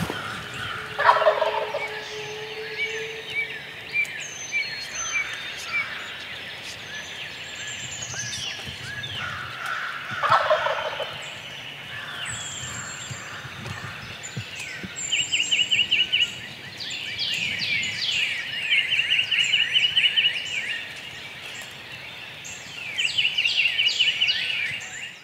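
A wild tom turkey gobbling twice from its roost tree, about a second in and again about ten seconds in. A dawn chorus of songbirds runs underneath, with fast repeated trills through the second half.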